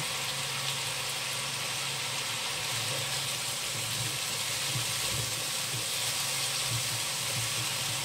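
Leaves sizzling in hot oil in a wok, stirred with a wooden spatula, over a low steady hum.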